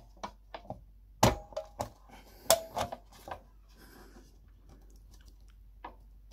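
Plastic clicks and knocks from a Ford Focus Mk2 dashboard top storage lid and its catch being worked by hand, a quick run of sharp clicks in the first three and a half seconds, then one more near the end. The lid is catching at one side as it is pressed shut.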